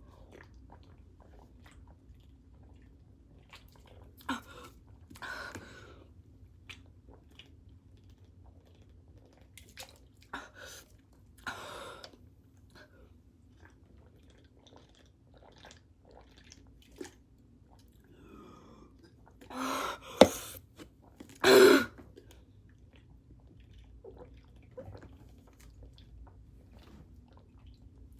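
A person gulping down an energy drink in long swigs: scattered wet swallowing sounds, with a few louder ones about two-thirds of the way through, one of them a sharp click.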